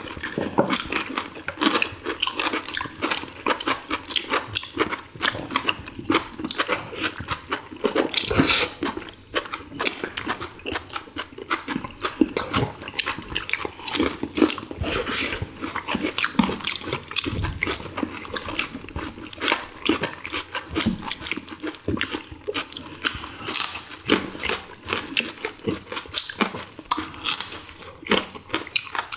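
Close-miked eating sounds of several people eating boiled chicken from samgyetang by hand: wet chewing, lip smacking and slurping, a quick stream of small clicks with a louder smack about eight seconds in.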